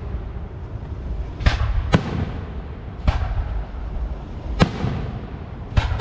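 Fireworks shells bursting overhead: five sharp bangs at uneven intervals over a steady low rumble.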